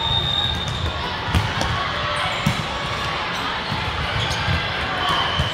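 Volleyball match in a gymnasium: several sharp smacks of the ball, about a second or so apart, over a steady hubbub of spectators talking, with a couple of short high squeaks.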